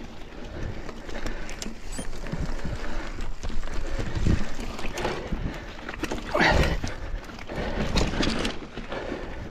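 Mountain bike rolling over rocks and roots on a technical singletrack: tyres crunching and knocking, with rattling from the bike. The rider breathes hard on the effort, with a loud exhale about six and a half seconds in.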